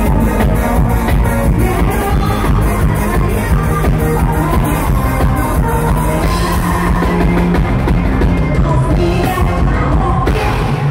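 Live Thai luk thung band music with singing, driven by a fast, steady drum-kit beat that thins out a little past the middle.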